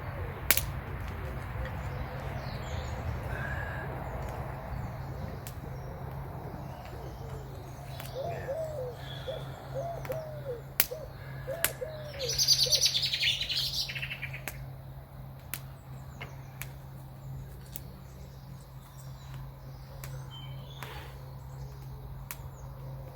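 Wild birds calling: a run of low, repeated coos about eight seconds in, then a brief, bright burst of high song from a small bird about twelve seconds in. Underneath there is a steady low hum and scattered sharp clicks.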